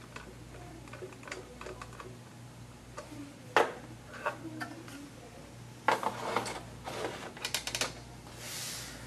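Clicks and knocks of an SSD in its metal drive bracket, a screwdriver and a laptop being handled on a wooden desk: faint ticks at first, a sharp knock about three and a half seconds in, and a quick run of clicks and rattles from about six seconds. Near the end comes a short soft scraping slide as the drive is pushed into the notebook's drive bay.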